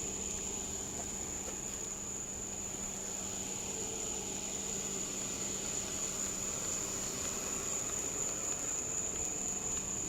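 Steady high-pitched insect drone that holds one pitch without a break, over a faint low steady hum.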